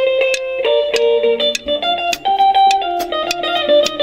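A band playing in rehearsal: a plucked guitar picks out a melody of short notes over drums, with sharp stick hits on the cymbals and drums.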